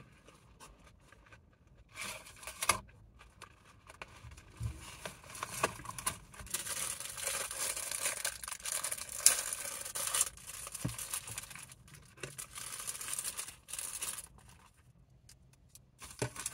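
Cellophane packet of oyster crackers being crinkled and torn open: on-and-off rustling and sharp crackles about two seconds in, then several seconds of dense crinkling that dies away near the end.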